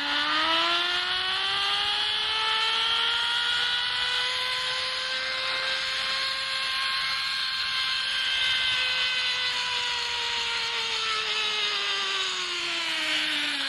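Zip-line trolley's pulleys running along the cable with a whine that rises in pitch as the rider picks up speed. The pitch levels off around the middle, then falls steadily as the rider slows toward the end of the run.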